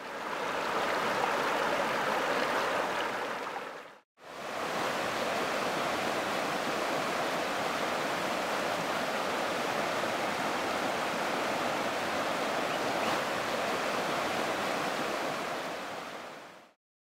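Shallow river rushing over rocks, a steady even rush of water. It fades out about four seconds in, fades straight back in, runs steady, and fades out near the end.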